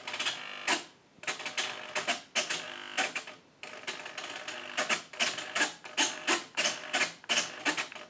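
Servos of a Skua FPV model plane buzzing in many short bursts, a few a second, as the control surfaces are driven back and forth from a gamepad's stick.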